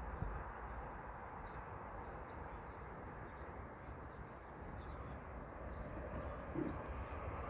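Small birds chirping in short calls several times a second over a steady low outdoor rumble. Near the end a faint rushing sound swells as a KTX-Eum electric high-speed train approaches.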